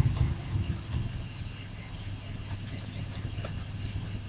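Irregular keystrokes of typing on a computer keyboard, over a steady low hum.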